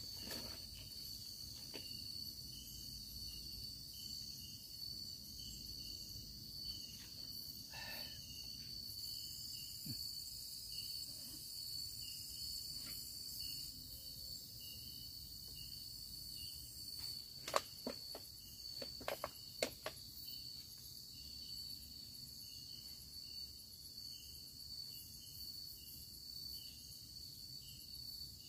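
Night insects calling: a steady high-pitched cricket drone with a regular chirp repeating beneath it. About two-thirds of the way through, a few sharp clicks stand out above the chorus as the loudest sounds.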